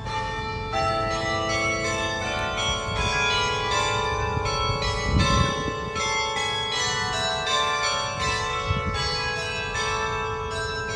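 Church tower bells ringing in a continuous run of strikes, about two a second, each tone hanging on and overlapping the next. A brief low thump about five seconds in.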